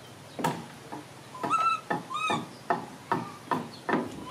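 A baby macaque gives two short, high squeaks, one after the other. Around them comes a string of sharp knocks on a wooden tabletop as it scrambles over the table and a plastic toy truck.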